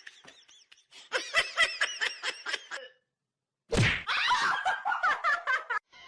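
High-pitched laughter in quick repeated giggles, in two stretches, with a sharp thud at the start of the second.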